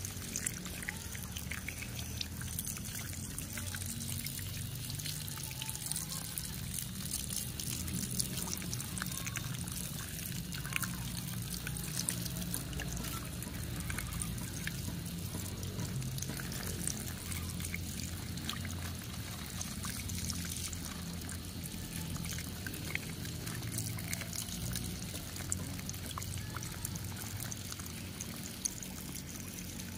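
A thin stream of water pouring steadily over a small plastic toy jeep held in the hand, trickling off it as the toy is rinsed.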